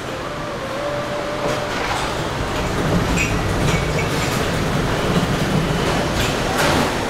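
Steady mechanical rumble of a large commercial galley kitchen, with short clattering knocks a few times.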